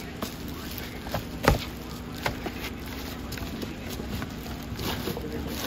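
Cookware being handled: a few sharp knocks and clacks, the loudest about a second and a half in, over a steady background hum.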